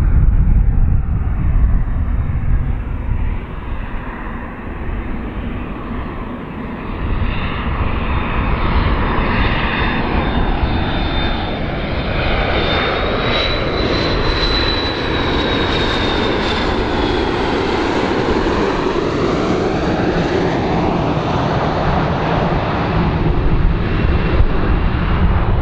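McDonnell Douglas MD-82 airliner's rear-mounted Pratt & Whitney JT8D turbofans on landing approach, passing low overhead. A steady jet rumble with a high whine that climbs and then falls in pitch about halfway through as the plane goes by.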